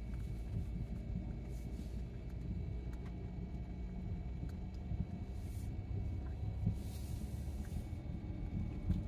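A vehicle driving slowly over a rough dirt track, heard from inside the cabin: a steady low rumble with scattered knocks and rattles and a few brief hisses.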